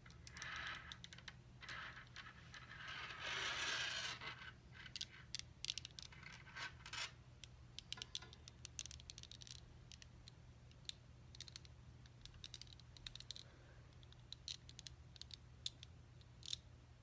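Small magnetic balls clicking and snapping against each other, faint, with a longer stretch of scraping and rolling about three to four seconds in and scattered sharp clicks the rest of the time.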